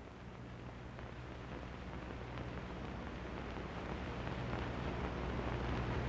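Steady low hum and hiss of an old film soundtrack, slowly growing louder.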